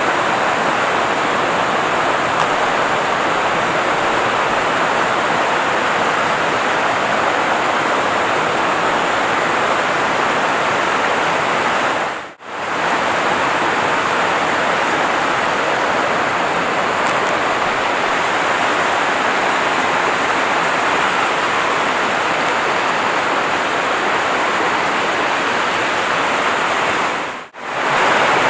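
Fast river water rushing over rocks in rapids, a loud, steady rush. It cuts out briefly twice.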